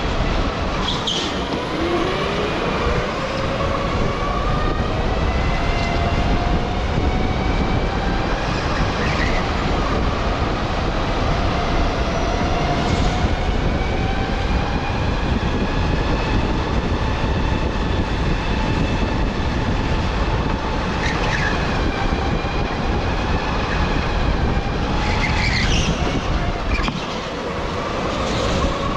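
Electric go-kart's motor whining, its pitch rising and falling with speed, over steady wind and road noise, with a few brief high squeaks.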